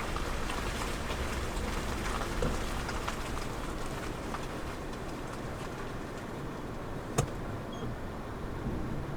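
Rain pattering on a car's roof and body, heard from inside the car: a steady hiss with a low rumble and scattered drop taps, and one sharper tap about seven seconds in.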